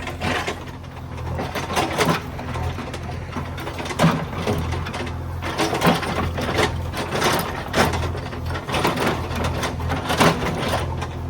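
JCB 3DX backhoe loader's diesel engine running steadily, with irregular sharp clanks and knocks every second or two from the machine at work.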